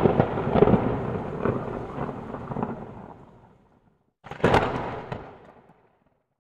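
Intro sound effect of two thunder-like booms, each with a crackling, rumbling tail: the first hits at the start and fades over about three seconds, the second comes about four seconds in and fades more quickly.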